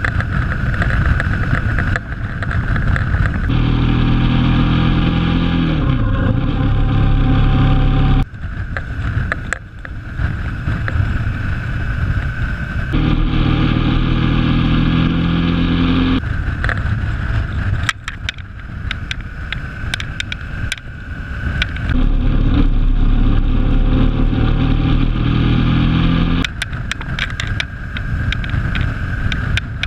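A motorbike riding along at speed: its engine's steady note comes through clearly in stretches of several seconds, dipping and rising once in pitch near six seconds, and in between is covered by wind buffeting and crackling on the microphone.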